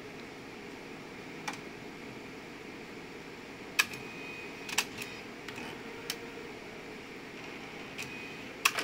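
Epson PP-100II disc publisher at work: a steady fan hum under a series of sharp mechanical clicks as its disc-transfer arm picks up and moves a disc. Several clicks are followed by a brief high whine, and the loudest clicks come about four seconds in and near the end.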